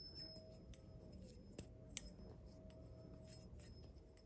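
Near silence with a few faint light clicks from a titanium balisong being handled and flipped, over a faint steady tone.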